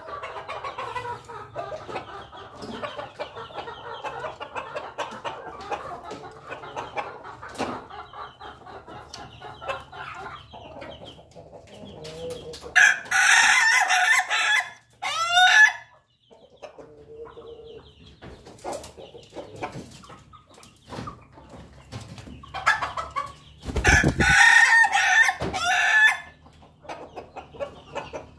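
Roosters, including ayam ketawa (Indonesian 'laughing chickens'), crowing in a coop: one loud crow about halfway through with a quick warbling tail, and another near the end, with chickens clucking softly in between.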